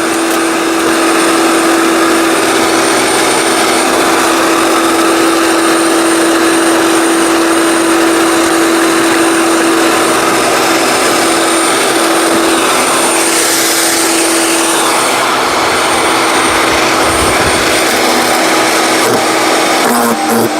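A 15-amp electric wood chipper shredder running: a steady motor hum under loud whirring noise, swelling about two-thirds of the way through as it chews on branches.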